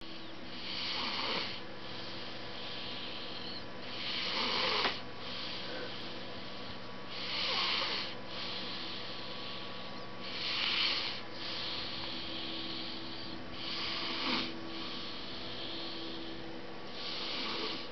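Snoring: slow, regular breathing, with six louder rasping breaths about three seconds apart and a quieter breath between each, over a steady hum.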